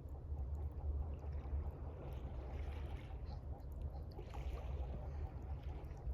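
Gentle water lapping, coming in soft swells every couple of seconds over a steady low rumble, with faint scattered pops from a crackling campfire.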